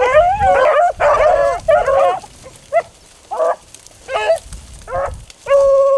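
A pack of beagles baying on a rabbit's trail. Several dogs call over one another for the first two seconds, then single bays come about once a second, ending on a longer held bay.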